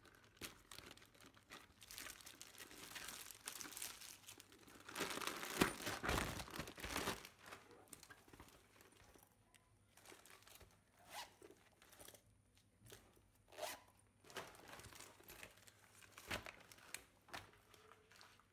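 Faint rustling and crinkling as a new handbag, its pouch and the plastic wrapping are handled, with small clicks and taps between. The longest and loudest stretch of rustling comes about five to seven seconds in.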